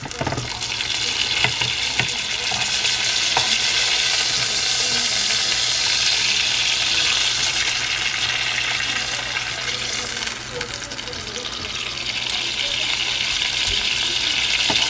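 Beef tenderloin searing in hot olive oil in a frying pan: a steady sizzle that eases a little about ten seconds in. A few light knocks sound near the start.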